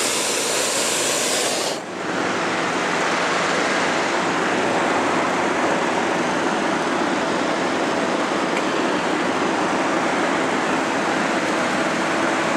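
Hot-air balloon's propane burner firing, a loud steady rushing noise, with a brief dip about two seconds in.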